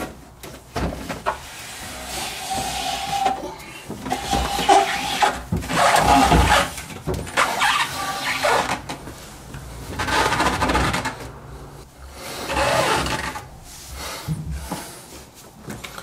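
Desktop PC tower case being handled and shifted on a tile floor: a series of irregular scrapes and rubbing noises, some with short squeaks, in bouts every second or two.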